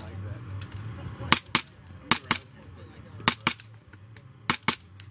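Suppressed 9mm SIG MPX SBR with a Wolf 9 SD suppressor firing at steel: sharp cracks in quick pairs, four pairs about a second apart.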